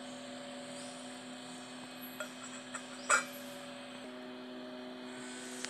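A steel plate is set down as a lid on a clay pot of boiling tea: a couple of light clicks about two seconds in, then a sharp metallic clink about three seconds in. A steady hum runs underneath throughout.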